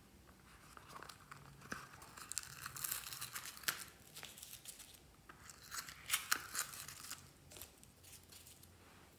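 Soft crinkling and crackling with sharp little clicks as small slime toppings, foam roses among them, are handled and pressed onto a tray of slime. The sounds come in two spells, from about a second in and again around six seconds.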